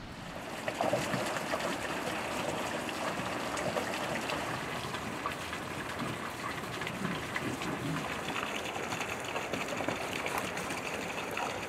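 Running water, a steady rush with fine splashing ticks, coming up louder about a second in.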